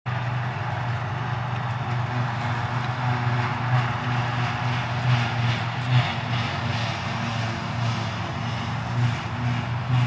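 A New Holland FX60 forage harvester running steadily as it picks up and chops grass silage, with the tractor and trailer alongside. It makes a constant engine drone with a broad rushing noise over it.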